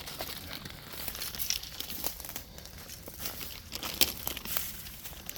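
Dry bamboo leaves and stalks crackling and rustling in irregular small crunches, with a sharper snap about four seconds in.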